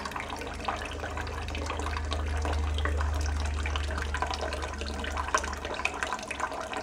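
Kitchen faucet running a thin, steady stream that splashes into standing water in a stainless steel sink. A low rumble swells and fades over the middle seconds.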